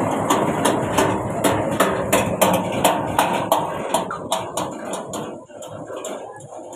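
Heavy cargo truck driving past and pulling away, with a rhythmic clatter of about three clacks a second over its rumble that fades as it moves off.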